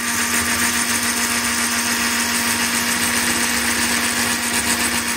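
Electric stick blender whipping thick pastry cream in a steel pot. The motor runs at a steady high speed with an unchanging whine.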